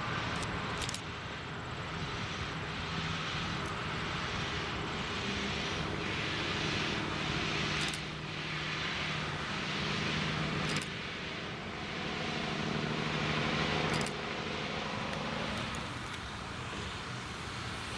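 Diesel locomotive engine running with a steady drone over the hiss of a moving train.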